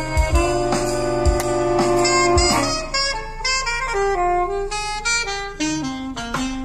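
Saxophone-led jazz instrumental played as a sound test through a car's 3-way component speaker system, with a tweeter and midrange in the A-pillar. Held chords with a few low drum hits give way about halfway through to a stepping melodic line.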